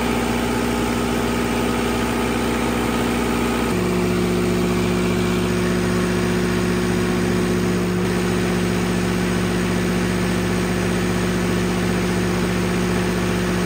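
Standby generator engine (MTU Onsite Energy) running steadily under load from a load bank: a loud, even drone. Its tone changes abruptly about four seconds in, then holds steady.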